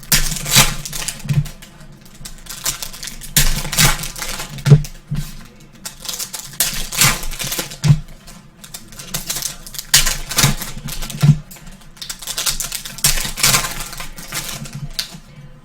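Trading card packs and cards being handled by hand: repeated short rustling swishes and clicks of wrappers and card stock, irregular, about every second or two.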